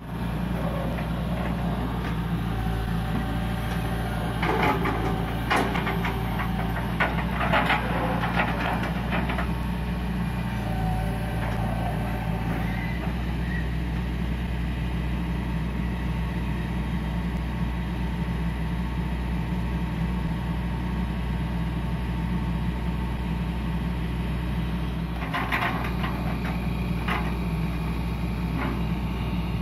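Diesel engine of a Hitachi EX120 long-reach excavator running steadily under work. Bursts of knocks and rattles come over it a few seconds in and again near the end.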